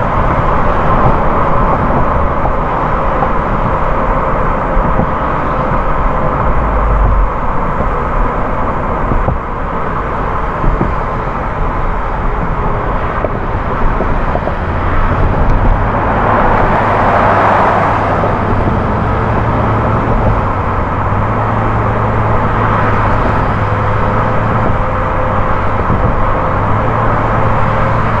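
Car driving at highway speed: steady tyre and road noise with a low engine hum. The noise swells briefly a little past the middle as the car passes under a stone arch bridge.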